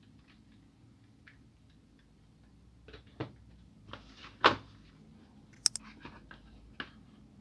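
Handling noise: a plastic printer drum unit and a cardboard parts box knocked, set down and shuffled on a table. Scattered light clicks, then a loud knock about halfway in and a few sharp clicks after it.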